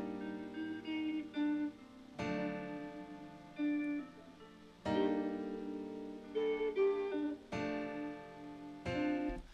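A jazzy guitar sample loop playing back: chords struck five times, about every two to three seconds, each ringing on with single picked notes over it.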